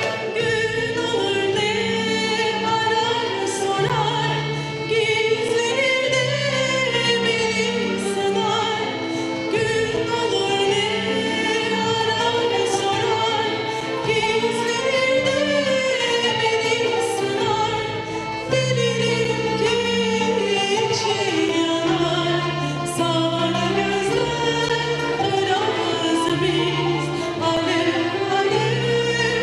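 A woman singing a slow song solo into a microphone, accompanied by an orchestra with violins. Her long held notes waver with vibrato over sustained low accompanying notes.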